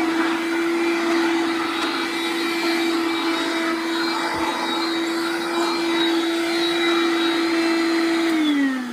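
A 1987 Hoover Dustette handheld vacuum cleaner running at a steady pitch, making quite a racket. Near the end it is switched off and the motor winds down, its pitch falling.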